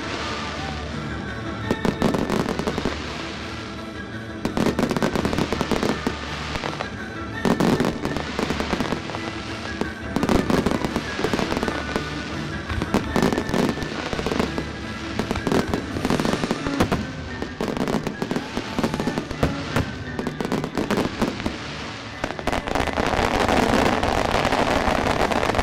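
Fireworks display: aerial shells going off in repeated sharp bangs over music played with the show. Near the end the bursts crowd together into a dense, continuous noise.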